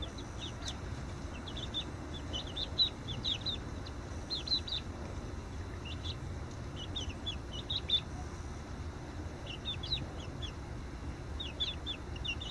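Five-week-old chicks peeping: short, high cheeps that drop in pitch, coming in scattered runs of several at a time over a steady low background noise.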